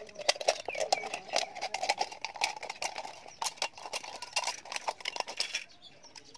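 Scissors cutting through a thin aluminium drink can: a quick run of sharp snips and crackles of the metal, stopping shortly before the end.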